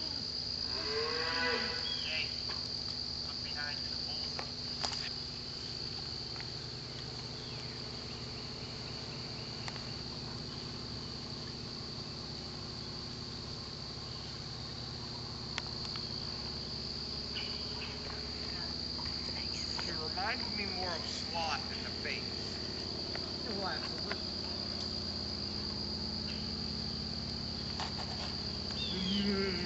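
A steady, high-pitched insect chorus runs throughout, with cattle lowing a few times, near the start and again about two-thirds of the way through.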